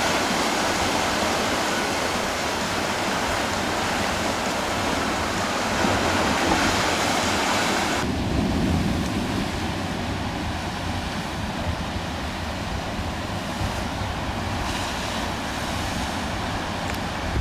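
Ocean surf breaking and washing over a volcanic rock shore, a steady rushing noise with wind buffeting the microphone. About eight seconds in the sound abruptly turns duller and a little quieter.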